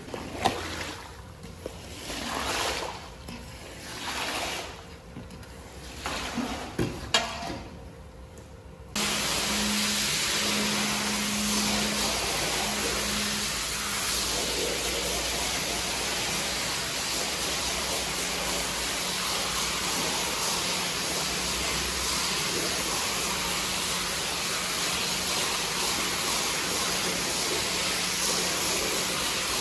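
A squeegee is pushed in strokes across a wet carpet, scraping the soapy water along, with about one swelling swish every two seconds and a few sharp clicks. About nine seconds in it gives way abruptly to a pressure washer's jet spraying onto the carpet: a steady, loud hiss with a low hum beneath.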